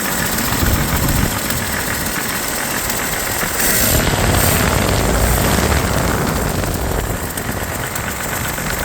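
Chevrolet 250 inline-six engine running, revved up for a few seconds from about three and a half seconds in and then let back down. It carries a knock the owner hears as a jingling from around the second connecting rod, which he puts down to a worn rod bearing, though he says an oil passage to the bearings could also be blocked.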